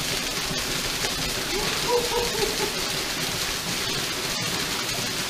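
Waterfall water pouring and splashing in a steady rush, with a few short pitched cries about two seconds in.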